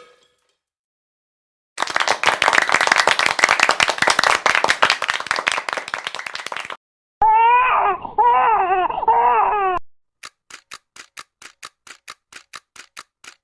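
A string of sound effects: about five seconds of dense crackling noise, then a short high, wavering baby-like cry, then quick light ticks at about four a second.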